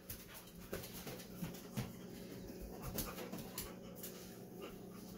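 A dog sniffing and panting in short, irregular breaths while it searches for a hidden scent.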